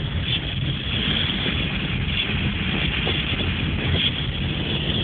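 Steady road rumble and wind noise inside a moving car, with wind buffeting the microphone.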